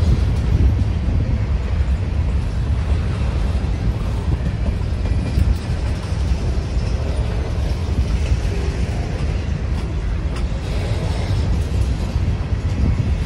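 Empty covered grain hopper cars of a freight train rolling past close by: a steady rumble of steel wheels on the rails.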